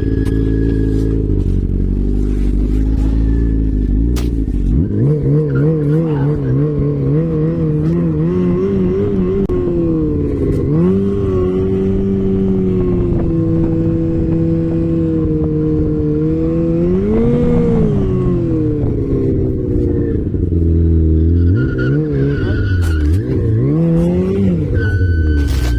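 An off-road vehicle's engine running loud, revving up and down over and over with its pitch wavering, as it is driven through rough, wet ground.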